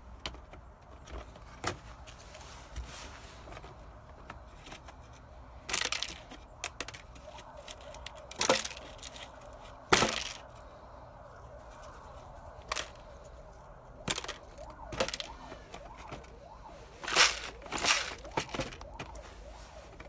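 Hands handling and resetting a homemade plastic-bottle bird trap: scattered sharp clicks, crackles and knocks from the thin plastic bottle, its cut-off door and the wire lever, with several louder knocks spread through.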